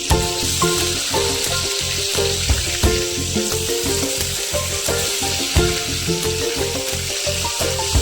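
Food sizzling steadily as it fries in hot oil in a pan, with background music playing a steady beat.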